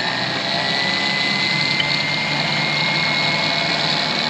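Superwinch LP8500 electric winch motor running under power: a steady high whine, creeping slightly upward in pitch, over a loud mechanical hum.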